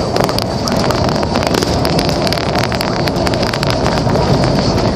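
A car driving on a highway through a blizzard: steady road and engine noise mixed with wind, and frequent small ticks throughout.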